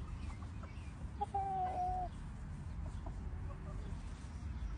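Chicken calling: one drawn-out, steady note a little over a second in, then a fainter, shorter one about three seconds in, over a low steady rumble.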